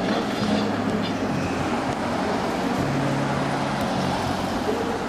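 City street traffic, with cars passing close by and a steady low hum.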